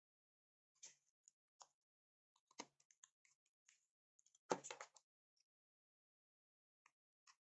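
Scattered faint clicks and taps of a smartphone's plastic display frame and screen being handled and worked with a plastic pry tool, with a louder cluster of knocks about four and a half seconds in.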